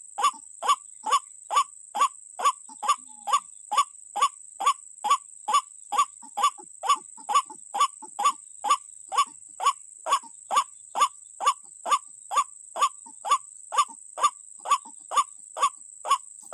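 White-breasted waterhen calling, a short pitched 'kwak' note repeated evenly about twice a second, over a steady high-pitched whine.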